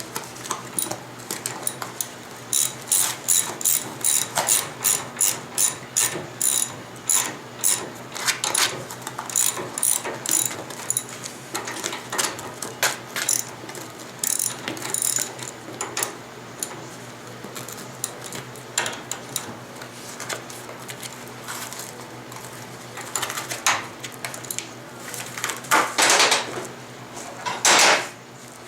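Hand ratchet wrench clicking in a steady run of strokes, about two to three clicks a second, thinning out after about sixteen seconds. Near the end come two louder, longer rushes of noise.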